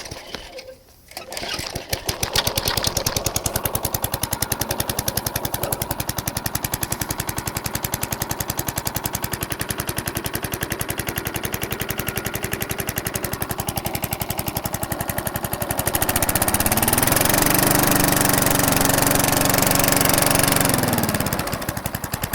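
Tecumseh lawn mower engine pull-started, catching within about two seconds and running with a rapid, even firing beat. About three-quarters of the way through it is throttled up to a higher, louder speed, then drops back down near the end.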